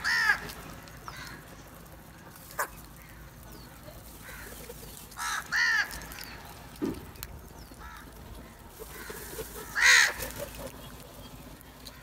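A flock of house crows cawing while feeding: a harsh caw right at the start, two quick caws about five and a half seconds in, and the loudest caw near ten seconds. A single sharp click comes about two and a half seconds in.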